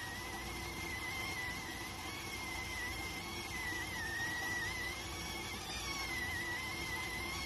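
Electric rice cooker (電鍋) steaming with a continuous whistle: a high, gently wavering tone over a steady hiss and low rumble.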